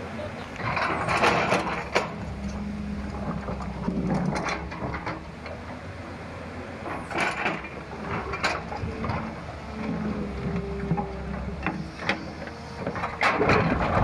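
Diesel engine of a JCB earthmover running steadily, with a held whine rising in and out and several sharp knocks and scrapes of the machine working rock and soil.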